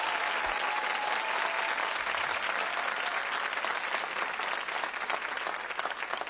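Audience applauding, the clapping slowly dying away and thinning into scattered claps near the end.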